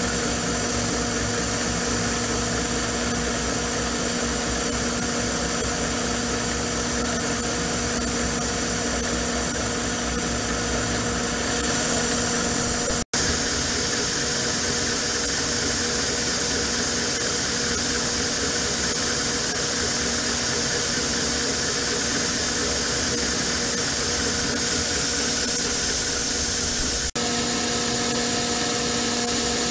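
Abene milling machine running a 1-inch roughing end mill through a 45-degree V cut in a metal block, a steady machine hum with a constant hiss of mist coolant. The sound cuts out for an instant about halfway through and dips briefly near the end.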